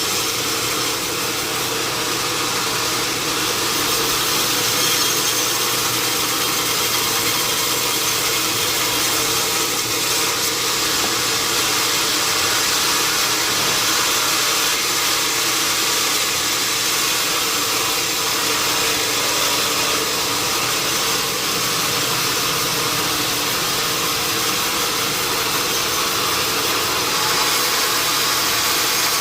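Sawmill machinery running steadily: a constant hiss over a steady engine-like hum, with no breaks or changes in level.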